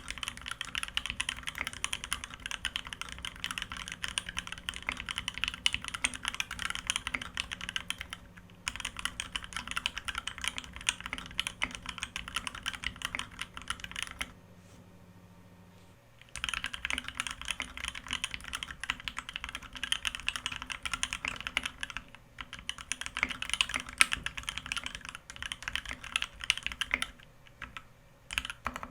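Fast typing on a Foxlab Key65 custom mechanical keyboard with Thic Thock Marshmallow linear switches lubed with Krytox 205, an aluminium plate and GMK keycaps: a dense, even run of key strokes. The typing stops for about two seconds around the middle, with a few shorter breaks later on.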